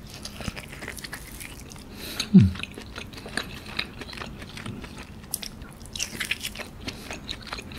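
Close-miked chewing of soft seared A5 wagyu beef: wet mouth clicks and smacks as the meat is bitten and chewed, with a short falling 'mm' hum about two and a half seconds in.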